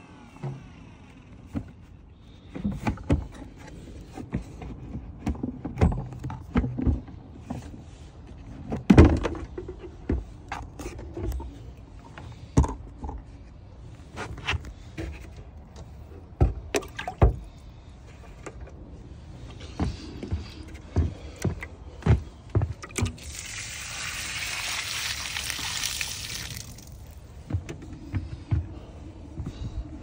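Knocks and clunks of the plastic Stinger shop vac being handled after it is switched off, the loudest about nine seconds in, as the lid is taken off its tank. About two-thirds of the way through comes a few seconds of rushing splash as the collected water is poured out of the tank.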